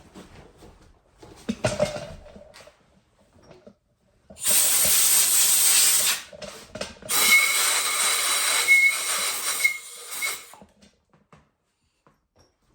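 Two long bursts of hissing spray, the first about two seconds and the second about three, with a few light handling knocks before them.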